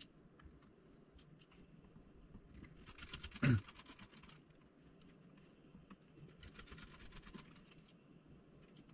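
Faint, scattered clicking and tapping of small screws and tiny tools being handled while a GoPro Hero 7's case is taken apart, coming in short bunches. About three and a half seconds in there is one brief, louder sound that falls in pitch.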